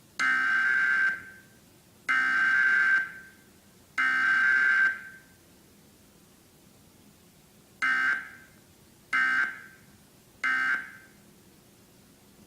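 Emergency Alert System SAME digital data bursts of a Required Weekly Test: three one-second bursts of the header code a second apart, then after a pause three shorter end-of-message bursts. No attention tone.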